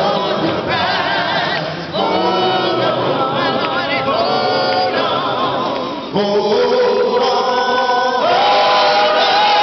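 A group of voices singing a freedom song a cappella, a man's voice leading on a microphone with the others joining in. The phrases break briefly about two and six seconds in, and a long held note begins near the end.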